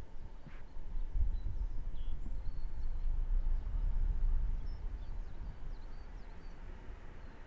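Wind buffeting the microphone in an irregular low rumble that eases off after about four seconds, with faint, scattered high bird chirps.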